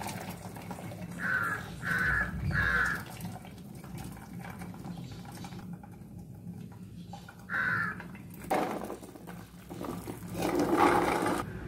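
Cooking water from boiled chickpeas poured out of a pressure cooker through a perforated aluminium colander, with a louder pour near the end. A crow caws three times in quick succession about a second in, and once more about eight seconds in.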